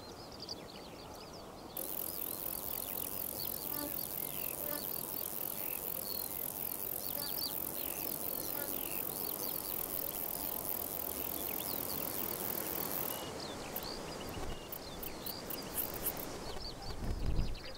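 Grasshopper stridulating, rubbing its hind femur against its forewings to call others of its species: a steady, high, rapidly pulsing buzz that starts about two seconds in and stops about thirteen seconds in, followed by a few short bursts near the end. Birds chirp faintly in the background.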